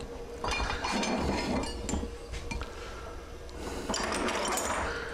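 Metal still parts, column sections and tubing, clinking and clattering together as they are picked through and lifted, in two spells: one starting about half a second in, another around four seconds in.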